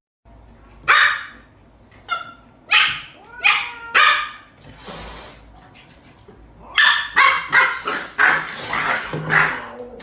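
Dog barking: single barks spaced through the first few seconds, then a quick run of barks near the end.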